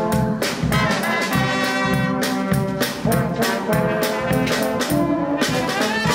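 Brass band playing an upbeat tune: horns hold chords over a steady, pulsing beat.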